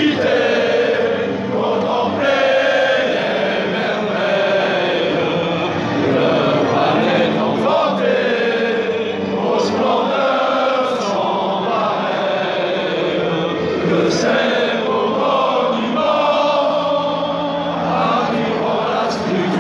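Football supporters singing a chant together in the stands, many voices in unison with no break.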